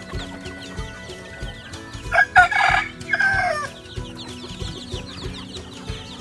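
A rooster crows once, about two seconds in, a loud call in two parts lasting about a second and a half, over chickens clucking in the background.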